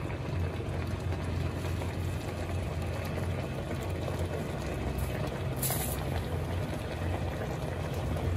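A steel pot of coconut-milk stew simmering on the stove, giving a steady bubbling hiss over a steady low hum. About five and a half seconds in there is a brief, sharp high hiss.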